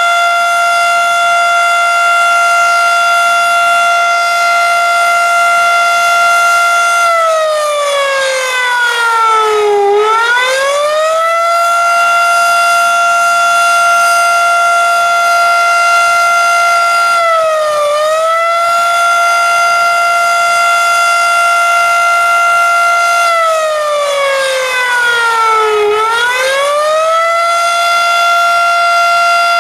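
Federal Signal Model 7A civil defense siren, raspy in tone, sounding a wail. Its high steady pitch falls away and climbs back about a third of the way in, dips briefly near the middle, then falls and climbs back again later on, the rise and fall of the attack signal.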